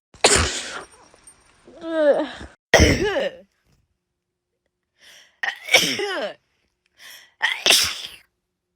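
A person sneezing several times: about four loud sneezes, each with a voiced falling cry, some with a short drawn-in breath before them, separated by abrupt silences.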